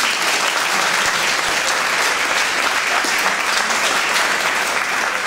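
Audience applauding, many people clapping steadily at a constant level.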